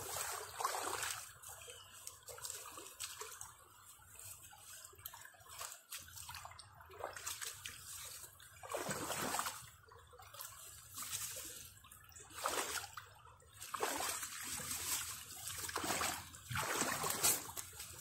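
Shallow creek water running over rocks, broken by irregular splashing and sloshing as feet wade through the water.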